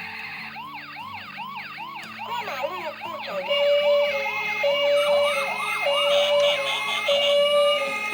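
Several toy ambulances' electronic sirens sounding at once, with many fast rising-and-falling wails overlapping. About three and a half seconds in, a two-tone hi-lo siren joins them.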